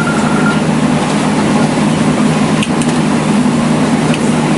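Steady low hum inside a stopped public-transport vehicle with its doors open, as passengers climb aboard. A few light knocks from their steps and bags come about two and a half seconds in and again near the end.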